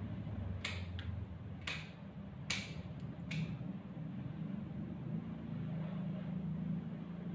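Grooming scissors snipping through matted dog fur on the tail: five sharp snips in the first three and a half seconds, over a steady low hum.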